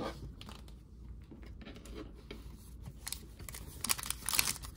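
Trading cards being handled and squared into a stack, with soft clicks and rustles, then a short run of crinkling near the end as a sealed Panini Prizm pack's wrapper is handled.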